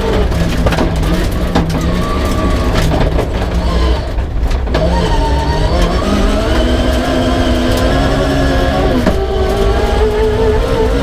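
Peugeot 306 rally car engine running hard, heard from inside the car: the revs fall away about four seconds in, climb steeply again, then drop sharply near the end at a gear change and rise once more. Frequent clicks and knocks sound over it throughout.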